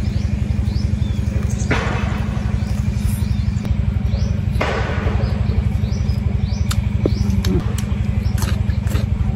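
A small engine running steadily with a low, even rumble, while birds chirp faintly. Two short crunching noises come about two and five seconds in, as a piece of fried pork bone is bitten.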